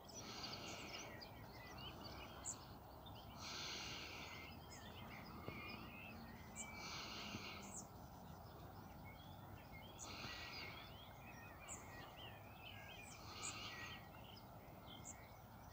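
Birds chirping and singing over a low, steady background noise, with one dense song phrase of about a second repeating roughly every three and a half seconds.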